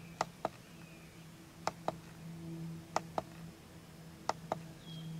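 Steering-wheel menu scroll button on a 2018 Ram clicking as it is pressed to scroll through the dash display: four pairs of quick clicks, just over a second apart, over a faint steady hum.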